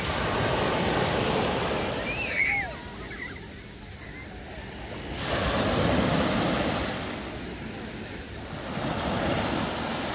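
Small waves breaking and washing up onto a sandy beach, the surf swelling three times. A short high-pitched call cuts through about two and a half seconds in.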